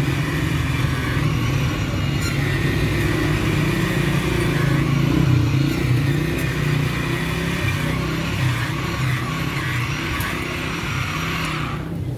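Steady mechanical drone of a running motor, with a strong low hum and a hiss above it. The hiss cuts off suddenly near the end.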